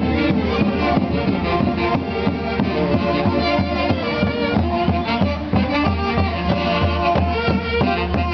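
Orchestra music with violin carrying the tune over a steady beat.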